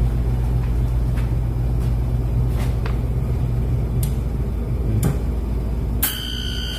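Manitowoc Indigo Series commercial ice machine running after start-up, a steady low hum with a few faint clicks. About six seconds in the hum drops and a steady high-pitched tone starts abruptly.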